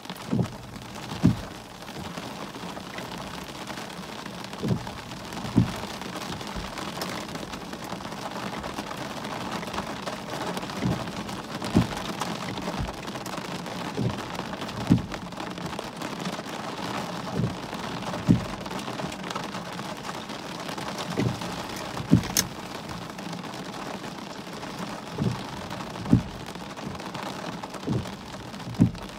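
Heavy rain falling steadily, a constant hiss, with sharp low knocks every few seconds, often in pairs, from heavy drops striking close by.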